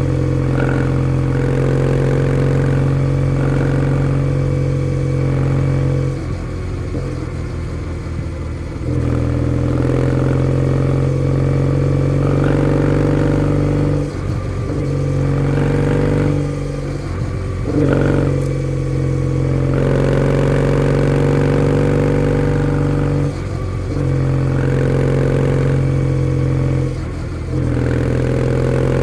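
Kawasaki W650's air-cooled parallel-twin engine running through a POSH W1 aftermarket full exhaust while riding, mostly at a steady even pitch. A quieter stretch comes about six seconds in, and the sound drops briefly several times later on, as the throttle is closed.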